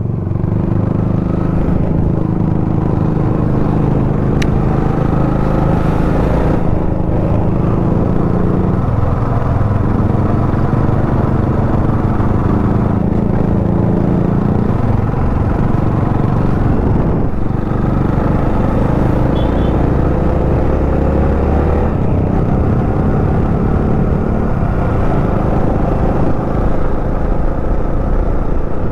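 Motor vehicle engine running steadily while driving, its note shifting a few times.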